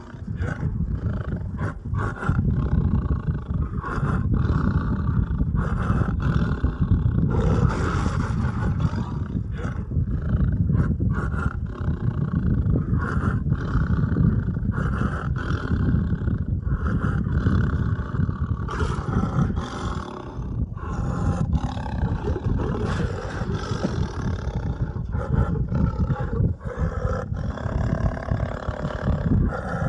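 A deep, rough roaring sound effect that runs on without a break, its rumble pulsing irregularly.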